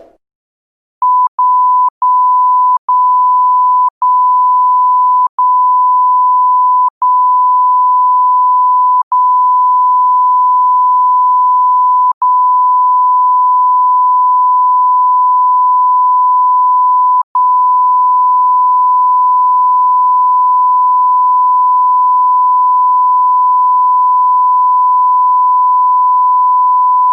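Censor bleep: a single steady high-pitched beep tone, cut by very short gaps into about ten beeps that each last longer than the one before, then held unbroken for the last ten seconds or so.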